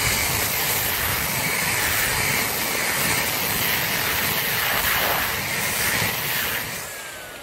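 Handheld electric rotary sander with an 80-grit disc running steadily against a concrete floor, grinding down the raised ridge of polyurethane sealant over an expansion joint to level it. Near the end the motor is switched off and winds down with a falling whine.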